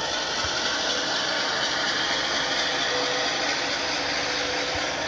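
HO-scale model train running on the layout: a steady mechanical hiss and whirr with no distinct beats.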